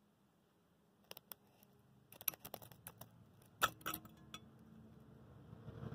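A series of sharp clinks and taps as a utensil and an ice cube knock against a metal cup of water, the loudest strike about three and a half seconds in, followed by a brief ring from the cup. A soft rushing starts to rise near the end.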